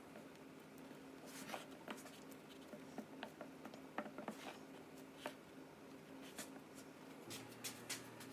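Faint, scattered taps and clicks of fingers pressing pie dough into a pie pan, over a low steady room hum.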